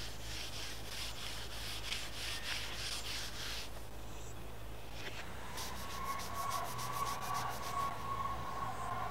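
A cloth rubbed back and forth over steel: quick wiping strokes across an anvil face, a short pause, then faster strokes over a small square steel block with a faint thin tone beneath them.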